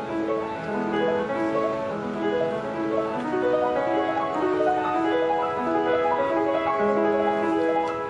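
Instrumental background music: a melody of sustained notes moving in steps over a lower line.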